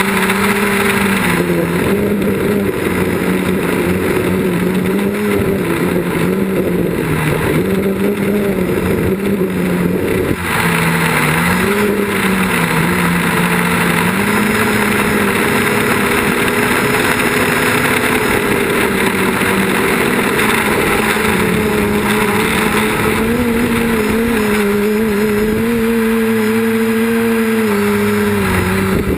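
Quadcopter's electric motors and propellers running with a steady buzzing hum, heard from on board the craft; the pitch wavers up and down as the throttle changes, with a brief dip about ten seconds in.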